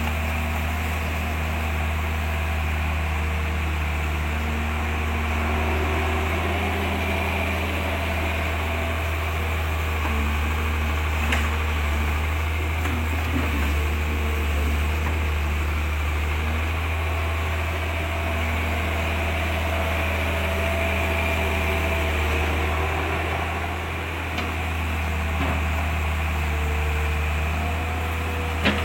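Steady low mechanical hum, like a motor or fan running, with a faint click about eleven seconds in and another near the end.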